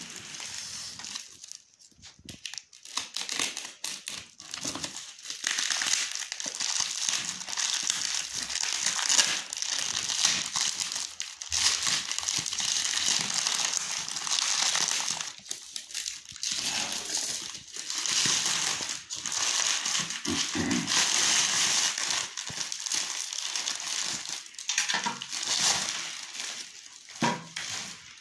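Clear plastic wrapping crinkling and crackling as it is torn and pulled off a product box by hand, in irregular stretches with a few brief pauses.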